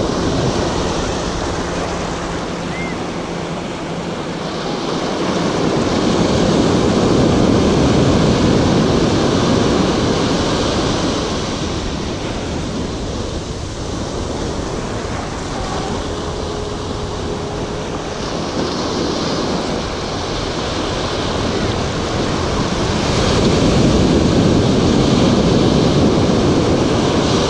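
Ocean surf breaking and washing up the beach in the shallows, swelling twice as waves roll in.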